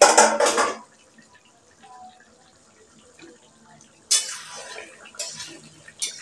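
Metal spoon stirring and scraping thick mutton and potato curry in an aluminium kadai, with a short metallic clatter at the start and repeated scrapes against the pan from about four seconds in.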